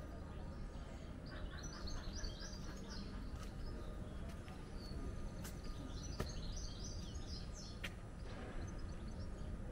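A small songbird singing two short phrases of rapid high notes, one about a second in and one around the middle, over a steady low rumble of city background noise.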